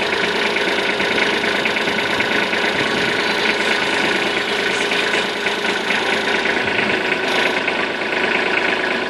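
Kubota B2420 compact tractor's three-cylinder diesel engine running steadily, with a rapid, even diesel clatter.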